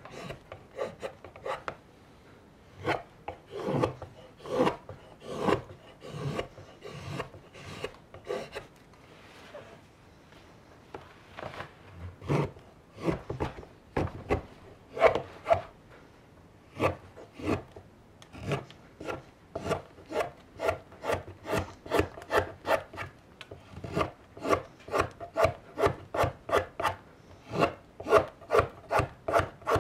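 Carving knife shaving raw birch wood in short repeated cutting strokes, each a brief scrape. The strokes are irregular at first, pause briefly about a third of the way in, then come fast and even, about two to three a second.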